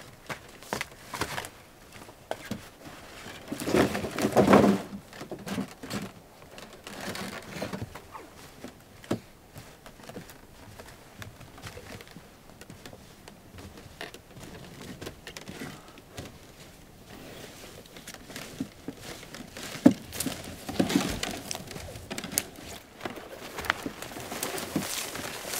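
Firewood being handled in a woodshed and set into a tub: scattered knocks, clunks and rustling. The loudest clatter comes about four seconds in, with another burst of knocks and one sharp click around twenty seconds in.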